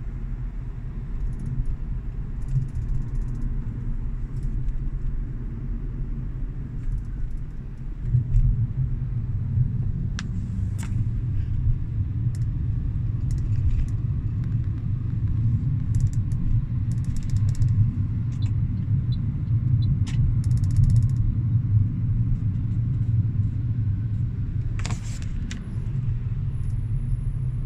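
Cabin road rumble of a moving Toyota Corolla Altis (11.5th generation), with scattered short clicks and rattles from the front passenger side as the car goes over uneven road: the abnormal noise the owner is tracking down. The rumble grows louder about eight seconds in.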